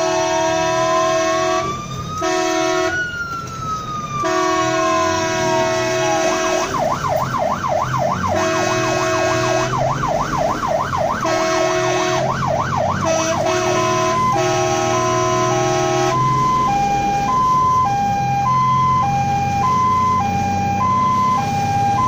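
Fire engine siren heard from inside the cab, cycling through its tones: a slow wail rising then falling, a fast yelp, and then a steady two-tone hi-lo. Several long horn blasts sound over the wail and yelp, with the truck's engine running low underneath.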